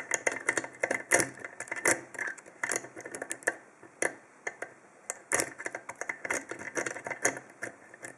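Hook pick and tensioner working the 5-pin core of an American 5200 padlock, with quick irregular metallic clicks and light scraping as the serrated pins are set.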